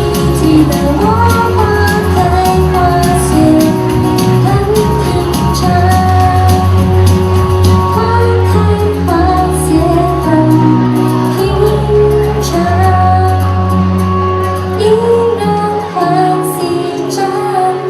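A pop-style song playing: a melody over a steady bass line, with singing.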